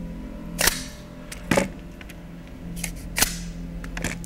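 Magazines of pneumatic nail guns being snapped shut one after another: about four sharp plastic-and-metal clacks at uneven intervals, with a couple of fainter clicks between them.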